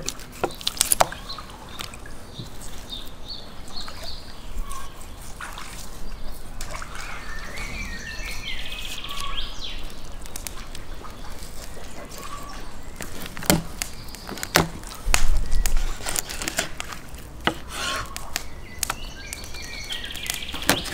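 A knife cutting and jointing a raw rabbit carcass on a wooden cutting board: wet cutting and handling of the meat and sharp knocks of the blade on the board, a few of them louder in the second half. Birds chirp faintly in the background.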